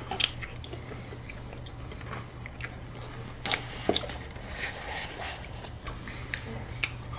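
Close-miked eating sounds: mouth smacks and soft chewing of a creamy dessert, with scattered light clicks of a spoon in a plastic cup, over a low steady hum.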